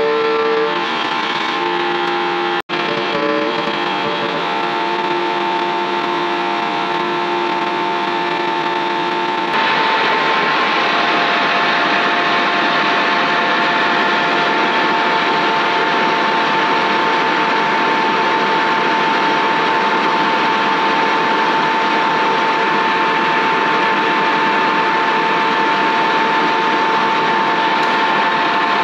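Background rock music with distorted electric guitar, turning denser and more sustained about ten seconds in.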